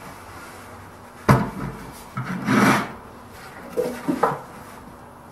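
Plywood box being tipped over and handled on a workbench: a sharp wooden knock about a second in, then a short scraping rub of wood on the bench, then a few lighter knocks.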